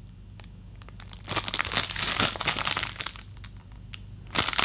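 Packaging crinkling in bursts as it is handled: a run of crackling for a second or two, and again near the end.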